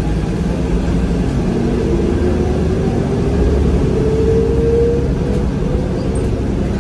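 Interior running noise of a New Flyer DE60LFR diesel-electric hybrid articulated bus (Cummins ISL diesel with Allison EP50 hybrid drive): a steady low rumble with a whine that rises slowly in pitch through the middle.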